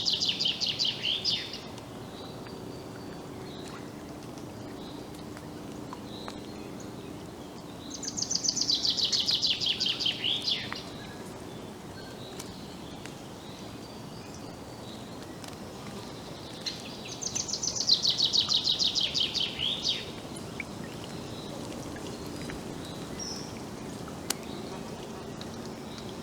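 A songbird repeatedly singing the same fast, descending trilled phrase of two to three seconds: once at the very start, again about 8 seconds in and again about 17 seconds in. Between phrases there is a steady low outdoor background hum and a few faint distant bird calls.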